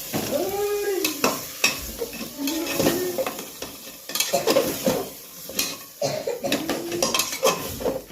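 Metal spoon stirring and scraping goat meat in a cooking pot, with repeated clinks against the pot and a steady sizzle of frying.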